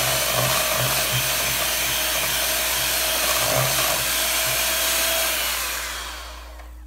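Electric hand mixer running steadily, its beaters whipping a thick egg yolk, butter and mayonnaise mixture in a stainless steel bowl. The motor winds down and stops about six seconds in.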